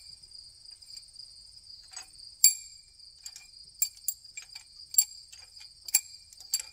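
Metal pushrods clinking together as they are drawn one by one out of a Ford 385-series V8's cylinder head and bunched in the hand: about a dozen sharp, irregular clinks, the loudest about two and a half seconds in. Crickets chirp steadily behind.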